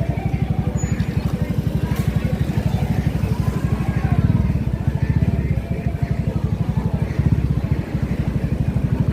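A motor vehicle's engine running on the move, a rapid, even low pulsing that swells about four seconds in and dips briefly twice later.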